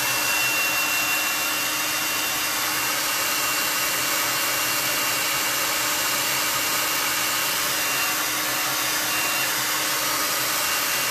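Handheld hair dryer running steadily on high, a rush of air with a thin motor whine, blowing on freshly applied chalk paste to dry it.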